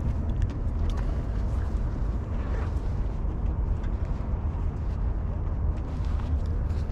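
Wind rumbling steadily on the microphone, with a few faint clicks.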